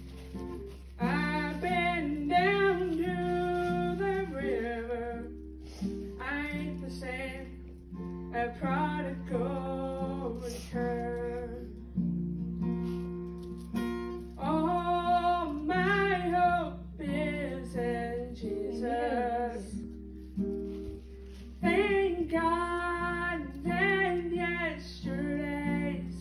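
A woman singing a worship song solo, accompanying herself on acoustic guitar, in sung phrases a few seconds long with short breaks between them.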